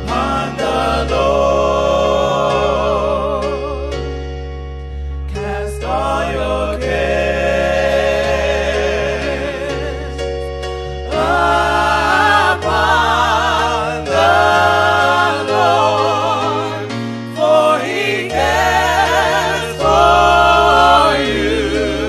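Gospel music: voices singing long, wavering notes over a steady keyboard and bass accompaniment.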